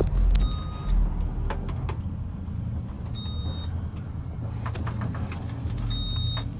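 Elevator car in motion: a steady low rumble of the moving cab, with a phone being handled and rubbing against a sleeve, a few knocks, and brief high tones near the start, about three seconds in and near the end.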